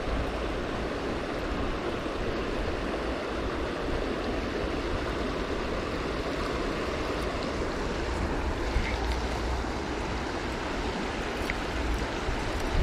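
Steady wind blowing over the microphone, a continuous low rumble with hiss on top.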